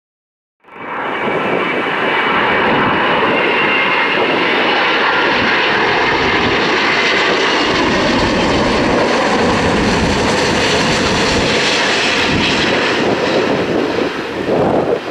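Airliner engines running with a loud, steady rumble and a high whine, starting abruptly just under a second in. Near the end the level turns uneven as wind buffets the microphone.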